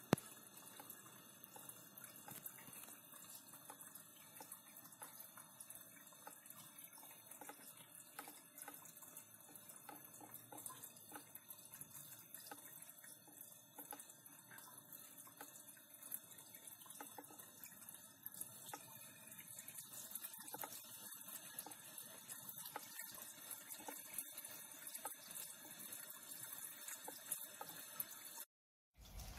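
Faint trickle of water draining from a kitchen sink down through the waste outlet and a plastic bottle trap, with a fine crackle; it breaks off for a moment near the end.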